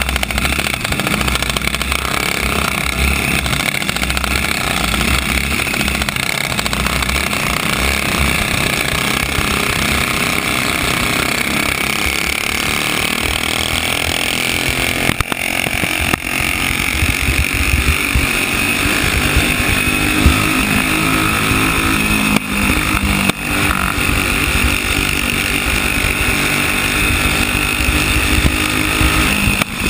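Flathead single-cylinder racing kart engine running hard, recorded onboard, its pitch rising and falling as the kart goes through the turns, with the engines of the surrounding karts mixed in.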